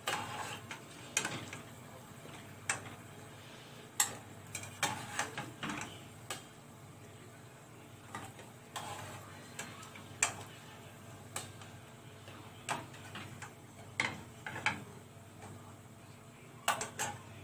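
Irregular metal clinks and taps, about one a second with a quick cluster near the end, of a slotted spoon and cookware knocking against a pot and plate. Under them is a faint steady sizzle of hot frying oil.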